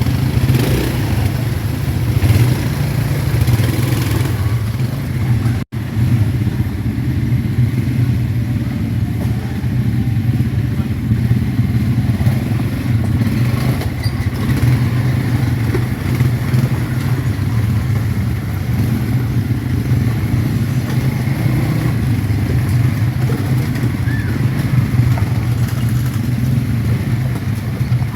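ATV engines running steadily off-road, a dense low rumble that holds at much the same level throughout, broken only by a momentary dropout about six seconds in.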